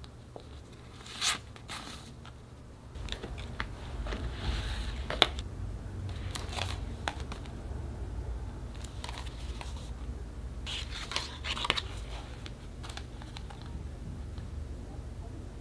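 Packaging being handled during an unboxing: intermittent rustling and crinkling with sharp little clicks, louder about a second in, in the middle, and again near the end.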